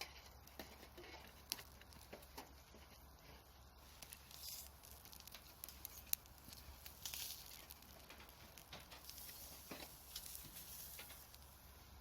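Wood campfire crackling quietly, with scattered small pops and a few short spells of hiss.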